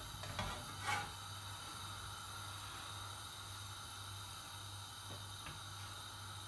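Steady faint low electrical hum with an even hiss, with a light knock about a second in.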